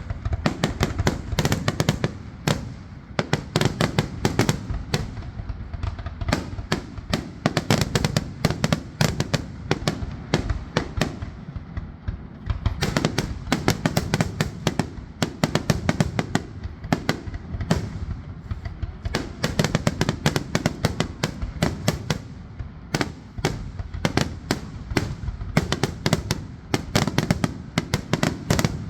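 Fireworks grand finale: aerial shells bursting in rapid, dense succession, many sharp bangs a second over a continuous low rumble, thinning briefly a few times before building again.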